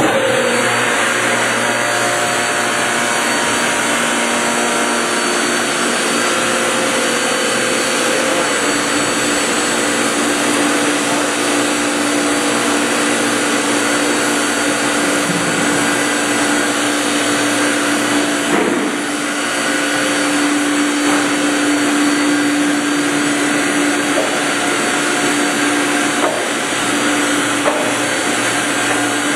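Stephan Microcut MCH 20 emulsifying mill running steadily under load as it cuts meat into hot dog emulsion with its 19-tooth rotor and 0.9 mm cutting ring. It makes a loud, even whirring hum with a steady tone in it, easing off briefly about two-thirds of the way through.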